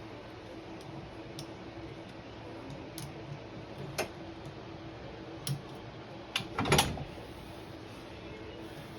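Scattered sharp clicks and knocks of parts and tools being handled while an engine is worked into a side-by-side's frame, with a louder clatter about two-thirds of the way through, over a steady low hum.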